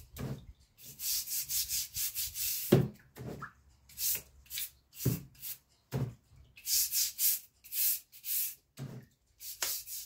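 Bristle scrub brush scrubbing rust off a steel bayonet scabbard in short runs of quick back-and-forth strokes, with a few dull knocks between runs.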